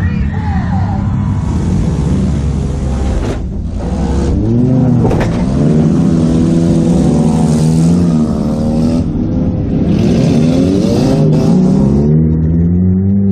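Toyota Matrix's four-cylinder engine revving up and down under throttle, heard from inside the stripped cabin, with stretches of hiss over it.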